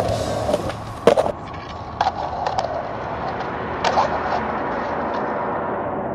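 Skateboard wheels rolling on concrete, with several sharp clacks of the board striking the ground about a second in, around two seconds and again near four seconds.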